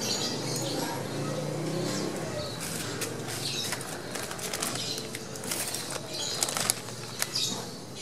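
Irregular rustling, crackling and fluttering from a plastic-taped parcel of live lovebirds in a wire cage as it is handled.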